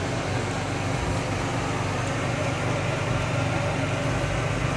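Steady hum and airy rush of a room ventilation fan, unchanging throughout.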